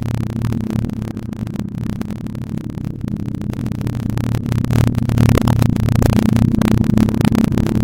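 Harsh, chaotic noise: a steady low hum under dense crackling, getting louder about five seconds in.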